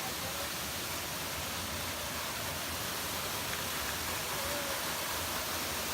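Steady rushing of a rainforest creek's waterfall, an even wash of water noise with no break.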